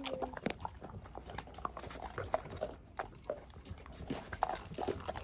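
A Bernese mountain dog chewing a dried tendon chew: a run of irregular short crunches and clicks.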